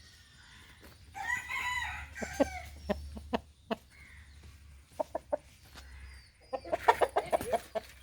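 Aseel rooster giving one short crow about a second in, then scattered short clucks and a quick run of clucks near the end.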